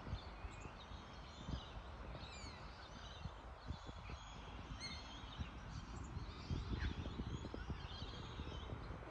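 Faint chirping and whistling of small birds, many short calls overlapping, over a low rumble.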